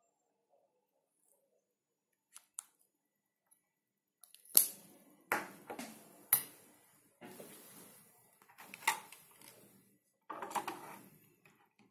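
Clicks and short knocks of objects being handled and set down on a hard surface. Two faint clicks come first, then from about four and a half seconds in a run of sharper clicks and scuffs, the loudest near its start.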